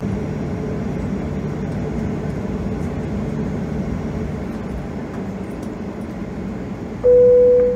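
Steady cabin noise of a Boeing 737-800 at the gate, from engines and air systems, then about seven seconds in a single loud cabin chime tone.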